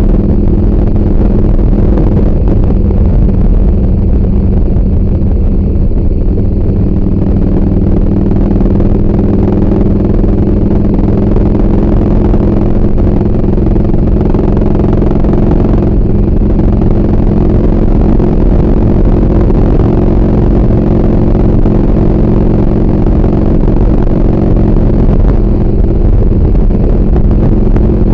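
2003 Harley-Davidson Heritage's V-twin running steadily at cruising speed, heard from the rider's seat as a constant low drone.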